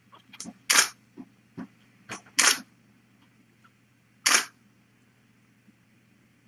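Three loud short sharp clicks, about a second and a half to two seconds apart, with a few fainter clicks between them.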